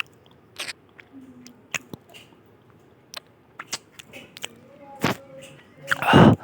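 A person chewing and biting food close to the microphone: scattered short, wet mouth clicks, then a loud breath near the end.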